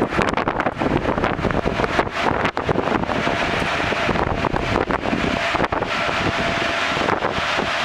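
Wind buffeting the microphone on a ship's open deck, a rough gusting rumble, with a faint steady hum underneath.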